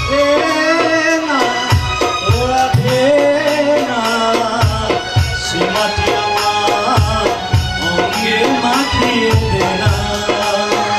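A man singing a Bengali patriotic song (desher gan) into a microphone over instrumental accompaniment with repeated drum beats.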